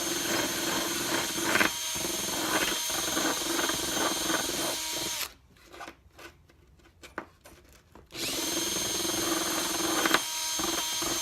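Drill-driven sanding drum sanding a small piece of purpleheart wood: the motor runs steadily for about five seconds and winds down, a few light knocks follow in the pause, then it runs again for about three seconds and stops near the end.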